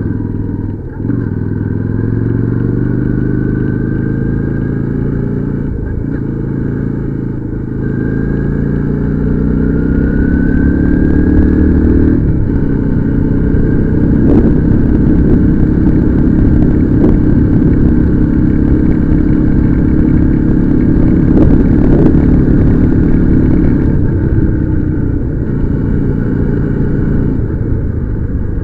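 Motorcycle engine running under way: its pitch climbs for about the first ten seconds as it accelerates, holds steady at cruising speed, then eases down near the end.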